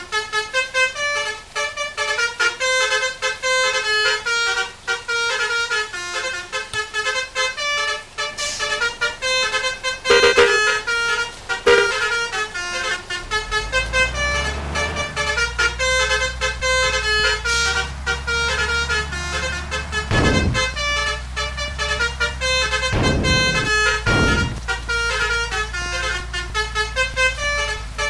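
Basuri multi-tone 'telolet' bus horn playing a quick, repeating melody of changing notes. About thirteen seconds in, the bus engine's low rumble joins underneath, and there are a few short noisy bursts.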